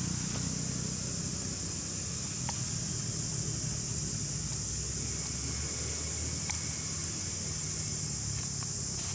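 Steady, high-pitched drone of a forest insect chorus, with a low rumble underneath and a couple of faint ticks.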